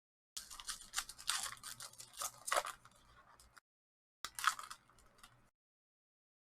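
Hockey trading cards being handled and slid against one another, with papery rustling and sharp scraping clicks in two stretches: a longer one of about three seconds, then a short one about a second later.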